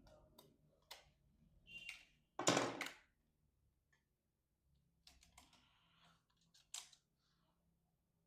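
Scattered small plastic clicks and scrapes from a tight battery compartment cover on a toy RC excavator set being pried at, with one louder scrape about two and a half seconds in.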